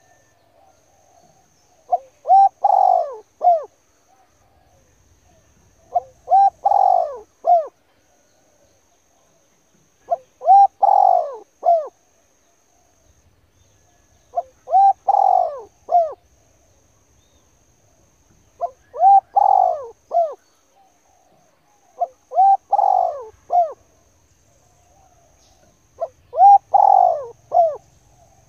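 A bird cooing: a phrase of several low, swooping coos, repeated about every four seconds, seven times.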